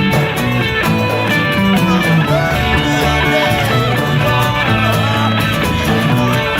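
Instrumental passage of folk-rock music: guitars playing over bass, with no singing.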